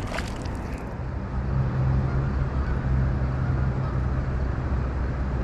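A steady low engine hum, like passing road traffic or a motor, rising a little in level about a second and a half in, over a faint outdoor noise bed; a few short clicks right at the start.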